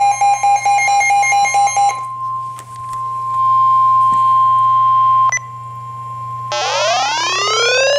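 Electronic weather-alert tones. A fast repeating beep for about two seconds gives way to a steady, single-pitch high alarm tone, the weather-radio warning tone, which cuts off with a click about five seconds in. After a short lull a rising electronic sweep plays.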